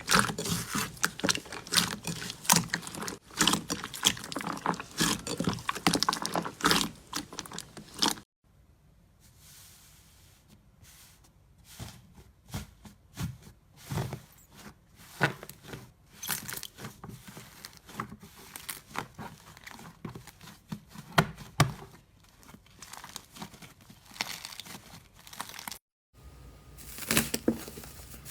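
Slime being squeezed and worked by hand, making dense crackling and popping. About eight seconds in it drops suddenly to a quieter stretch of scattered soft clicks, and loud crackling returns near the end.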